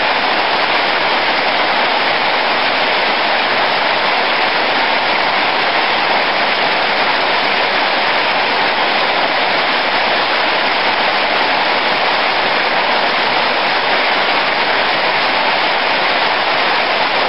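Heavy rain falling in a steady, loud, unbroken hiss.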